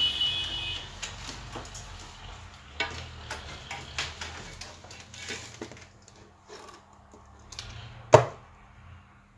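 Small clicks and taps of a soldering iron and tools being handled at a bass speaker's voice coil while its lead wires are connected, with one louder sharp click about eight seconds in. A brief high tone sounds at the very start, over a steady low hum.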